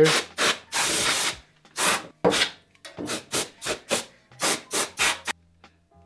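Rubbing strokes across the metal floor of an empty desktop PC case as it is cleaned of dust: one longer stroke about a second in, then a run of quick short strokes, several a second, that stop shortly before the end.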